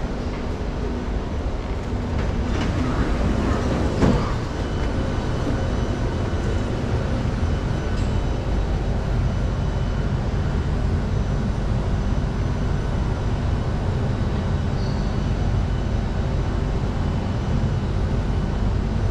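Circle Line MRT train standing at an underground platform with its doors open: a steady low rumble of the train and station machinery, with a short clatter about three to four seconds in.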